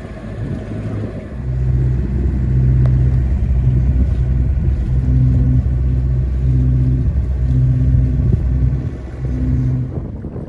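A motor humming in a string of short on-off runs over a low rumble, stopping near the end.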